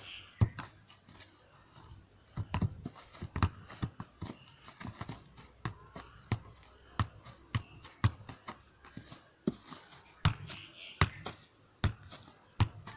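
Soccer ball being juggled: a string of dull thuds, about two or three a second and unevenly spaced, as the foot and leg keep knocking it back up.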